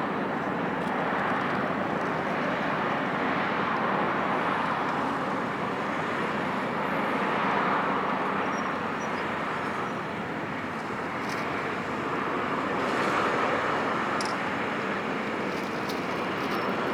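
Steady noise of the ferry Reimei Maru's engines and churning water as the ship manoeuvres out of port, swelling and easing slightly.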